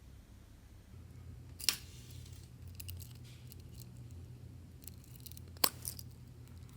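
Slime being worked in a plastic bag: soft crackling and squishing, with two sharp snaps, one about two seconds in and a louder one near the end.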